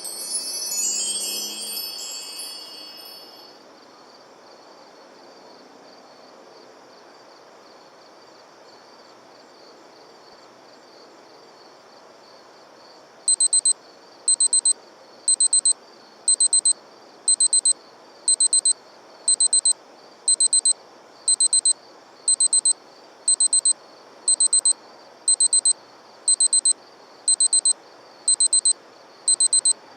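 A short chiming jingle that fades out within the first few seconds, then a low hiss. About halfway through, an electronic alarm clock starts beeping: a burst of quick high beeps about once a second, repeating without a break.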